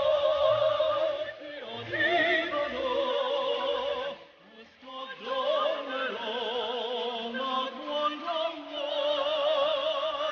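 Background music: a high operatic voice sings long held notes with wide vibrato, pausing briefly about four seconds in.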